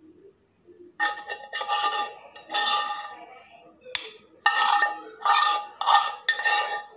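Stone pestle working mashed grilled eggplant in a granite mortar: about seven separate strokes, each a short, wet knock with a slight ring, and one sharper click about four seconds in.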